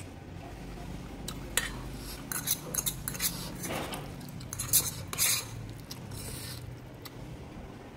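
A metal fork clinks and scrapes against a metal pot as it stirs and lifts instant noodles. The sharp clinks come in a string, most of them between about one and a half and five and a half seconds in.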